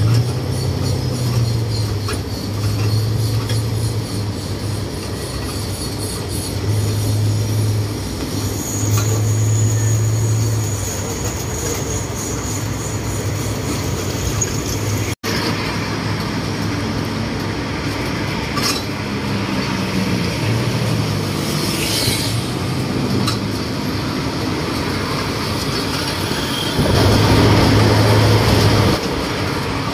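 Engine and road noise from a moving songthaew pickup-truck bus as heard from its open rear passenger bay: a steady low engine hum over tyre and wind noise and surrounding traffic. The sound drops out for an instant about halfway through and grows louder for about two seconds near the end.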